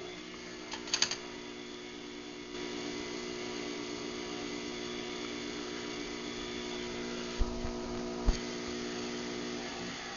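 Craftsman 139.53918D garage door opener running a close cycle: a steady motor hum with a whine. There is a click about a second in, the sound steps up a little in level around two and a half seconds, and two low thumps come near the end as the motor stops.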